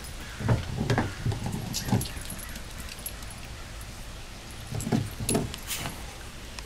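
Dogs eating from bowls on a wooden deck: scattered clinks and knocks, in one cluster from about half a second to two seconds in and another around five seconds in.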